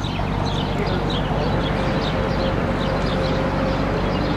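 A steady low engine hum, with a faint tone that slowly rises in pitch near the end. Small birds chirp over it in quick, short falling notes.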